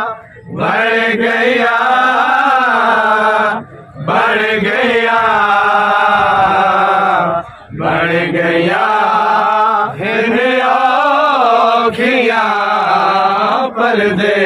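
Men chanting a noha, a Shia lament, in long held, wavering phrases, with brief breath pauses every few seconds.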